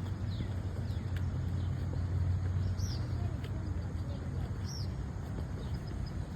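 Steady low hum of an idling vehicle engine, with birds chirping a few times over it.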